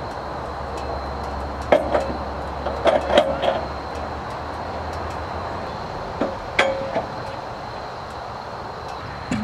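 Sharp metal clanks and knocks of a log cant being handled and clamped on a bandsaw sawmill bed: one about two seconds in, a quick cluster around three seconds, and two more past six seconds, over a faint low hum that fades out.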